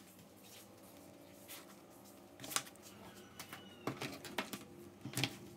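A few sharp clicks and taps of small tools and parts being handled during laptop disassembly: one about halfway through, then a quick cluster near the end.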